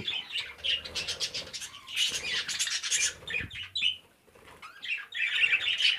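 A flock of budgerigars chattering and chirping, with wings flapping as birds take off. The chatter drops away briefly just after four seconds in, then picks up again.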